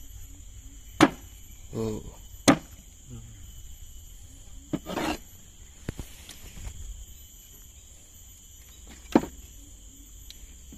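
Three sharp knocks on a wooden boat deck while a large sembilang catfish is handled on it, with a couple of short vocal sounds between them and a faint steady high whine throughout.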